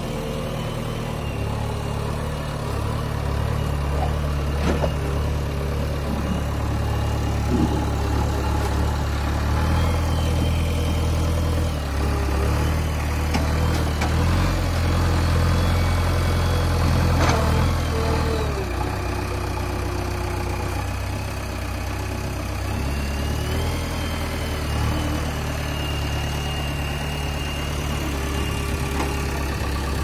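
JCB backhoe loader's diesel engine running steadily and working harder for several seconds in the middle as the front loader lifts a bucket of soil. A high whine rises over it twice, and there are a few sharp knocks.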